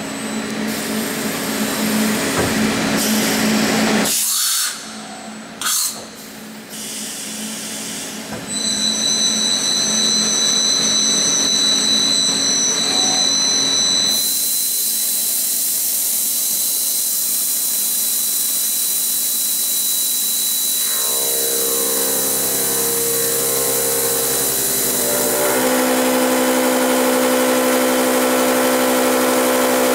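FICEP Valiant CNC beam drill line milling a structural steel beam with its direct-drive spindles. The machine hum drops out briefly about four seconds in, and then there are high steady whines. A long even hiss follows, and near the end several steady motor tones come in and get louder.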